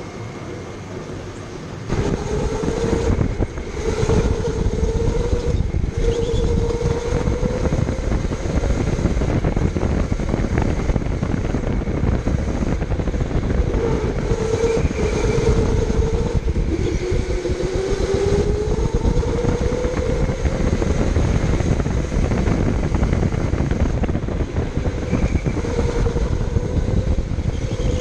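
Electric go-kart motor whining under way, its pitch rising and falling as the kart speeds up and slows through the corners, over a heavy rumble. It gets much louder about two seconds in as the kart accelerates.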